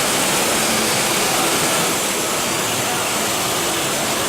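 CNC machining center for aluminium profiles running, a steady rushing machine noise that is strongest in the high pitches, with a few faint steady hums beneath.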